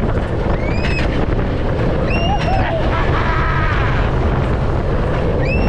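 Wind buffeting the microphone on a moving roller coaster, a loud, steady low rumble. Riders' screams rise and fall over it several times.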